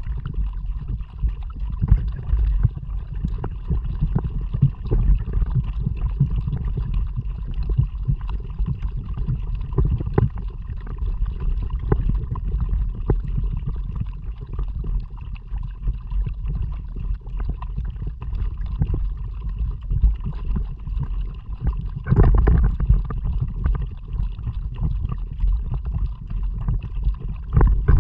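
A kayak being paddled, with water splashing and gurgling against the hull and paddle, under a heavy low rumble of wind buffeting the action camera's microphone. A louder surge comes about two-thirds of the way through.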